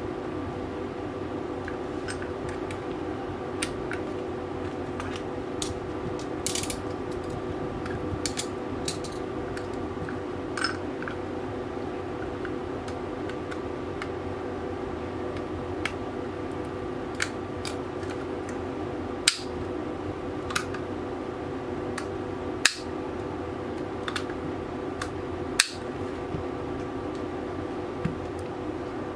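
Small metal parts of a Tokyo Marui Hi-Capa airsoft pistol frame clicking and tapping as they are handled and fitted, with a few sharper clicks in the second half, over a steady background hum.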